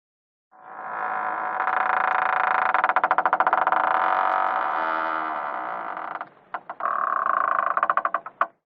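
A door creaking slowly on its hinges in one long, drawn-out creak. A couple of clicks follow, then a second, shorter creak that ends in a click.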